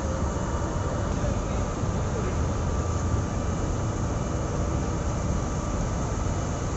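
Steady low rumble of running vehicle engines and street noise, with faint voices in the background.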